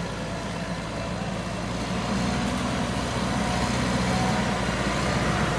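Kubota MU5501 tractor's diesel engine running steadily, getting a little louder about two seconds in.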